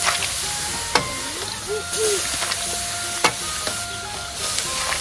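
Metal ladle stirring in a copper pot of steaming stew, with two sharp clinks of the ladle on the pot about one and three seconds in, over a steady hiss from the hot broth. Soft background music with held notes underneath.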